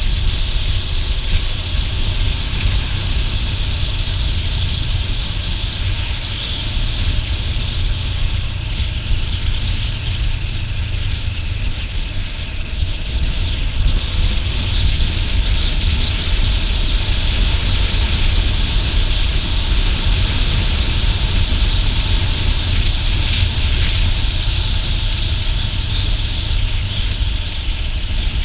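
Motorcycle cruising at road speed, heard from a camera mounted on the bike: a steady rush of wind over the microphone with a deep engine and road rumble underneath.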